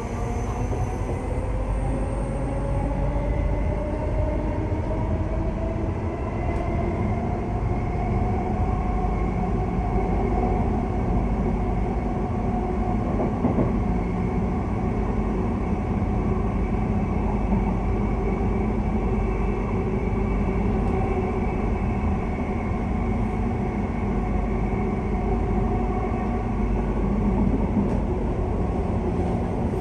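Electric passenger train running, with a steady rumble and a motor whine that rises in pitch over the first several seconds as it gathers speed, then holds steady.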